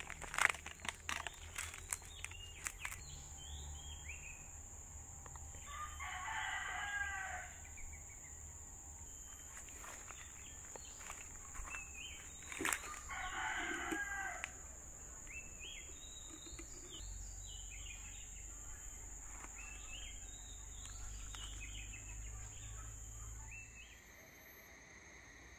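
A rooster crowing twice, each crow about a second and a half long, over a steady high-pitched tone. A few sharp clicks of the wooden hive box being opened come in the first seconds, and short chirps later on.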